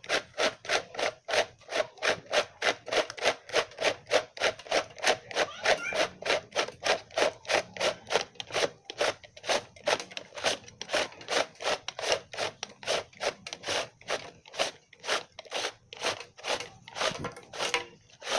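Homemade cord reel made from a plastic can being cranked to wind in its extension cord: the turning plastic plate rubs against the can in an even rhythm of rasping scrapes, about three a second.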